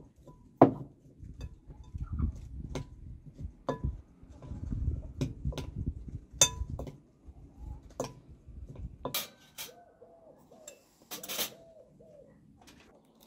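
A metal spoon clinking against a glass bowl as cauliflower florets are coated in batter, many light clinks over a low rumble. Near the end, a few short repeated bird calls.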